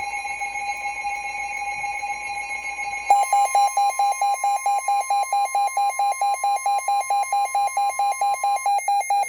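Weather radio alert alarm: a steady electronic tone for about three seconds, then rapid even beeping about five times a second. A fainter steady tone, the NOAA Weather Radio warning alarm tone that precedes a warning message, runs underneath and stops shortly before the end.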